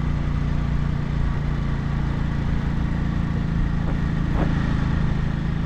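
Motorcycle engine running at a steady pitch while riding along.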